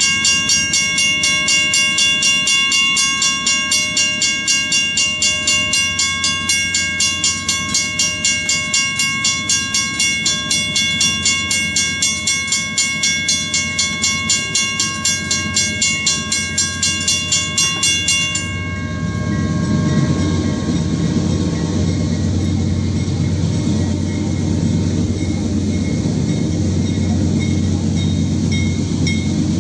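Railroad crossing bell ringing in quick, even strokes, stopping abruptly about two-thirds of the way through. After it stops, the low rumble of the approaching CSX freight train's diesel locomotive grows.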